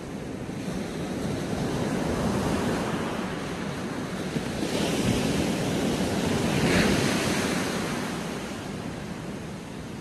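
Sea surf breaking and washing up a sandy beach, swelling twice, loudest about seven seconds in, then falling away.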